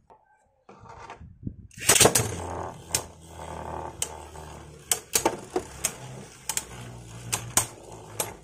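Two Takara Tomy Beyblade Burst tops ripcord-launched about two seconds in, then spinning in a clear plastic stadium with a steady low whir, clashing with sharp clacks many times.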